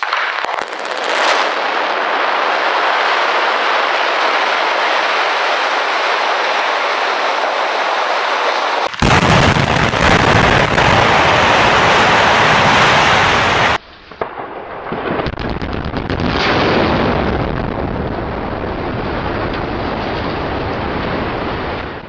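Explosive demolition of a power station building: blasting charges cracking, then the deep rumble of the concrete and steel structure collapsing, heard in several spliced takes that change abruptly about nine seconds in and again near fourteen seconds. Over it all runs a loud continuous rush of noise.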